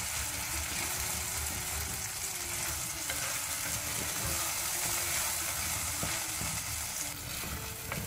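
Ground masala paste and fried onions sizzling in hot coconut oil in a pan, a steady frying hiss, with soft knocks as the paste is stirred.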